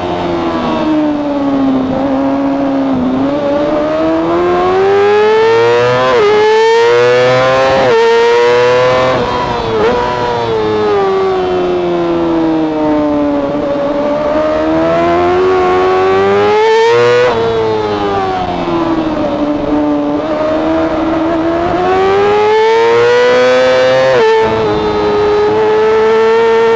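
Yamaha R6 inline-four racing motorcycle engine at full race pace, heard onboard. The pitch climbs hard under acceleration, drops sharply at each upshift, and slides down over a second or more when the bike slows for corners, several times over.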